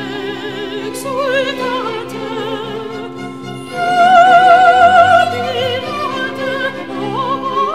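Background music: a classical operatic voice singing with strong vibrato over an orchestra with strings, swelling to a loud held note about four seconds in.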